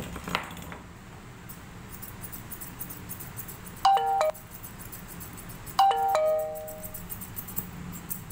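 An electronic two-note ding-dong chime sounds twice, about two seconds apart, each time a higher note followed by a lower one that fades out, over faint rapid ticking.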